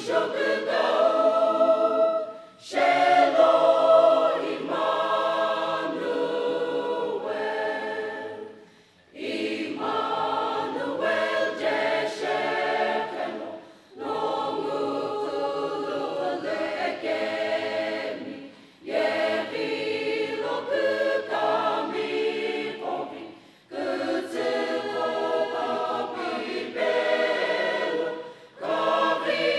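Mixed choir of men's and women's voices singing a hymn in harmony. The phrases run about five seconds each, with short breath pauses between them.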